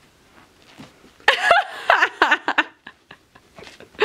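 Four-week-old Finnish Spitz puppies yipping and squealing in play-wrestling: a quick run of short, high-pitched cries starting just over a second in and lasting about a second and a half, then a few faint ticks.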